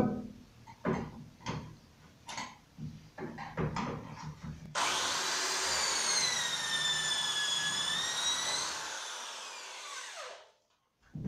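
A few light knocks as the drill bit is fitted into a Milescraft pocket-hole jig. About five seconds in, a corded electric drill starts and bores an inclined pocket hole into 18 mm melamine board for about four seconds, its whine dipping in pitch and recovering, then spins down.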